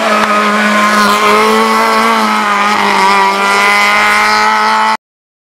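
Race car engine revving hard under acceleration, its pitch climbing with a short dip about halfway through; the sound cuts off abruptly about five seconds in.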